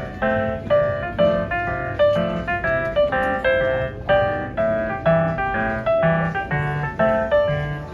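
Background music: a piano or electric piano playing a gentle melody with a steady beat of notes.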